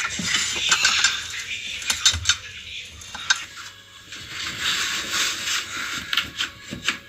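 Irregular metallic clinks, knocks and rattles of parts and tools being handled on the washing machine. There is no steady motor hum.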